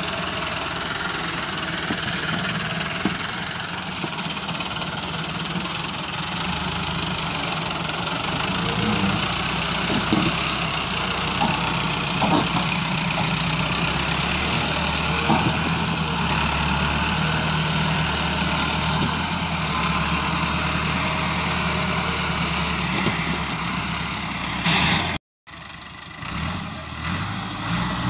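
Massey Ferguson 375 tractor's diesel engine running steadily under heavy load as it drags an overloaded sugarcane trolley, straining hard enough that its front wheels lift off the ground. Just after the three-quarter mark the sound breaks off for a moment and returns fainter, heard from further away.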